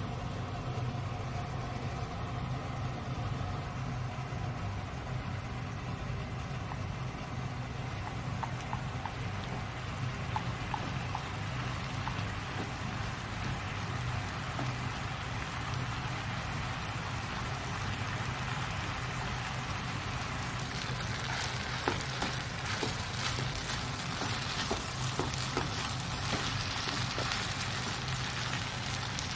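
Yakisoba noodles with cabbage and pork sizzling in a frying pan as they are stir-fried with chopsticks. The sizzle grows louder about two-thirds of the way in, with scattered clicks of the chopsticks against the pan. A steady low hum runs underneath.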